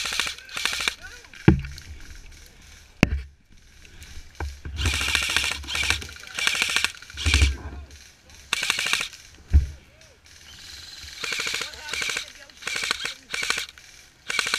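Repeated short bursts of full-auto airsoft gunfire, each a rapid rattle of clicks lasting under a second, some near and some farther off, with lulls between. A few heavy thumps cut in, the loudest about a second and a half in.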